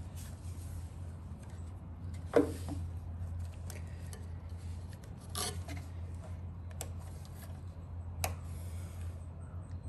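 Scattered clicks and taps of small hard plastic and metal parts being handled while working loose a motorcycle taillight fitting, the sharpest about two and a half seconds in, over a steady low hum.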